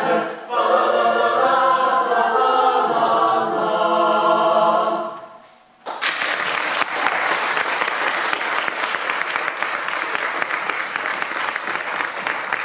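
Mixed-voice chamber choir singing unaccompanied, finishing its closing phrase and releasing the last chord about five and a half seconds in. Audience applause breaks out suddenly right after and continues.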